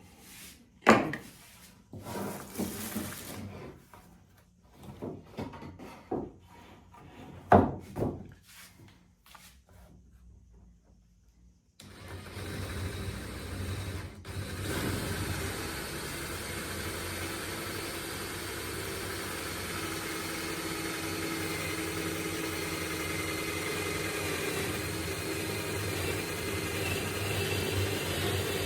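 Wooden parts knocking and clattering as they are handled, with two sharp knocks louder than the rest. About twelve seconds in, an electric power tool's motor starts and runs steadily.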